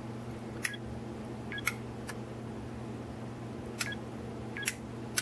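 Electromechanical relays on a Wi-Fi relay controller board clicking as they switch on one after another from a phone app: about six sharp, uneven clicks over a faint steady hum.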